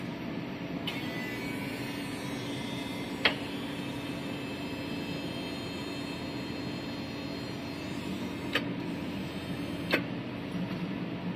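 A steady mechanical hum, with three short sharp clicks: one about three seconds in and two more near the end.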